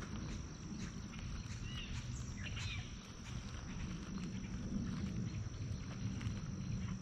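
Outdoor ambience at the water's edge: a low steady rumble and a thin high steady tone, with a few short bird chirps about two to three seconds in.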